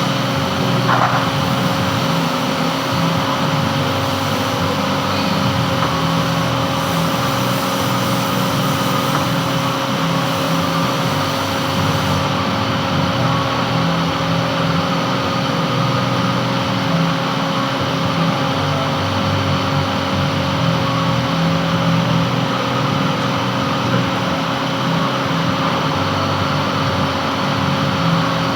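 Metal lathe running steadily with a constant hum of several fixed tones; a faint high hiss drops away about twelve seconds in.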